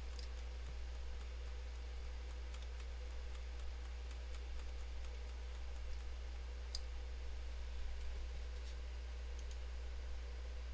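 Computer mouse clicking: scattered single sharp clicks, one louder about seven seconds in, as a font list is scrolled and a right-click menu opened. Under them runs a steady low hum.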